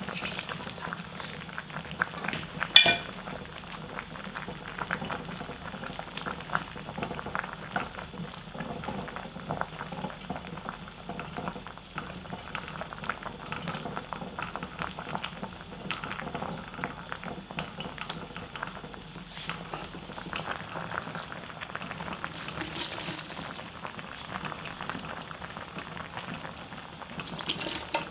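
Spicy skate stew bubbling at a steady boil in a stainless-steel pot, with a constant patter of small pops. A single sharp clink about three seconds in.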